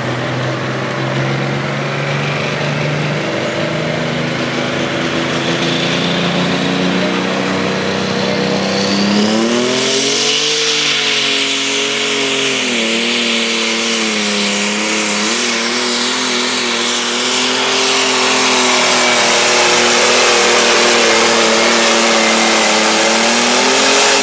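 Prostock pulling tractor's turbocharged diesel engine revving up at the start line, its pitch and a thin whine climbing over several seconds. About ten seconds in it goes to full throttle and runs loud while dragging the weight-transfer sled down the track, its pitch wavering under the load.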